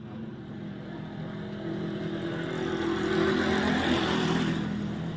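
Small motorcycle engine running steadily, growing louder from about two seconds in, loudest around three to four seconds in, then easing back.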